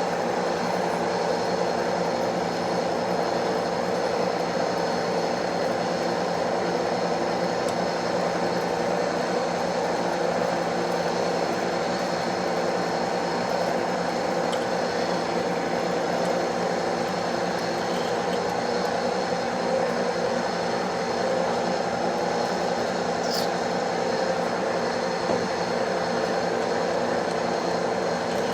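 Metal lathe running steadily with a drill bit boring a hole through the spinning workpiece: an even hum of motor and gearing that holds one pitch throughout.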